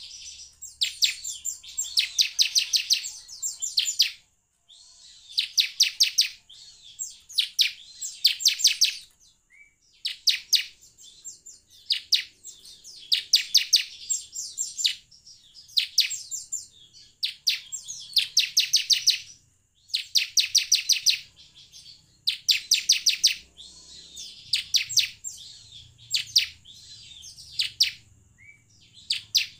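Bar-winged prinia (ciblek) singing: repeated bursts of fast, high, chipping notes, each burst half a second to a second long, following one another with short gaps.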